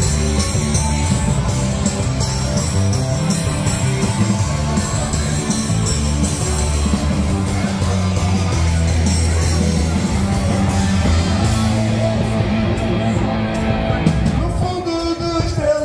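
A live rock band playing through stage speakers: electric bass and guitar over drums, with a voice starting to sing near the end.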